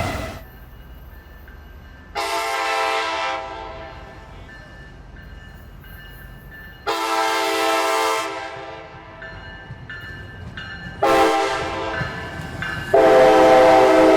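Nathan K5LA five-chime locomotive air horn sounding four blasts, the third one shorter and the last one loudest.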